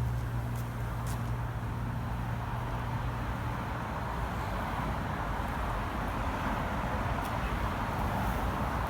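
A steady, even rumbling noise with no distinct events, swelling slightly toward the end.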